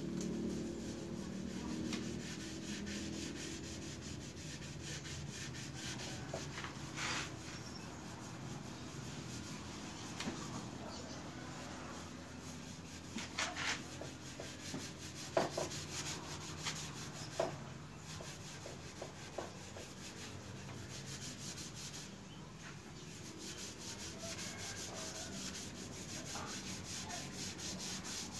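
Hand rubbing-down of a Vespa PTS 100's painted steel front mudguard, heard as a fast run of short back-and-forth scrubbing strokes. A few short knocks come around the middle.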